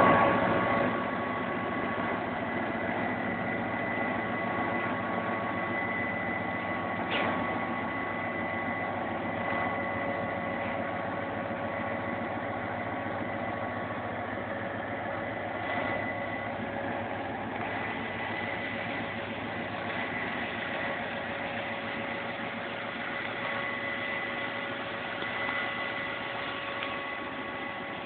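GT22 diesel locomotive engine running steadily: a rumble with a steady high whine of several tones over it, louder in the first second, and a single click about seven seconds in.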